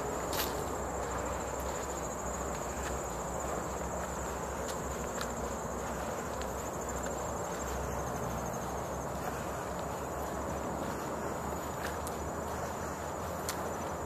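An insect trilling steadily at a high pitch, stopping about two-thirds of the way through, over a steady outdoor hiss with a few faint clicks.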